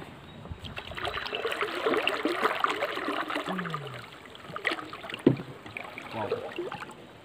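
Rustling and knocking of hands and clothing against the camera while a small wooden boat is tied up to mangrove roots, with a few sharper knocks and water lapping at the hull.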